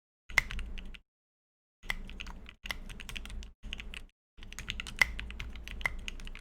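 Typing on a mechanical keyboard with lubed and filmed Tangerine linear switches in an aluminium case and plate with PBT keycaps and foam dampening: quick runs of keystrokes in about five bursts with short pauses between, a few keys striking louder than the rest.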